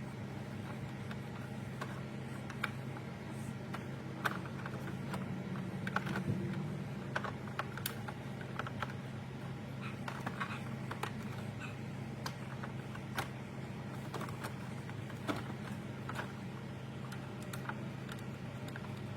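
Irregular light clicks and taps of plastic parts and wiring being handled, over a steady low hum.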